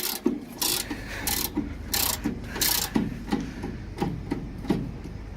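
Ratchet-and-pawl clicking from a hand-cranked spare-wheel carrier winch being wound up. Five short rasping strokes come about two-thirds of a second apart, then only lighter knocks for the last couple of seconds.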